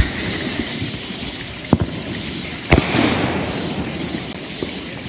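Nuclear Power brand firework rocket bursting overhead after its climb: a sharp bang about 1.7 s in, then a louder bang nearly three seconds in, followed by a fading hiss as the stars burn out.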